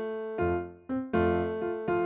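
Piano music: held chords, a new one struck about every three-quarters of a second.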